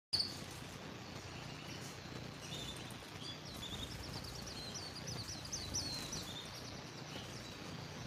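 Canary chirping faintly: scattered high notes, then a quick run of repeated sharp sweeping notes in the middle, over a steady background hiss.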